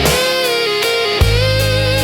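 Slow blues instrumental break: an electric guitar lead holds a long, wavering note over a held bass line, with a drum hit a little past a second in.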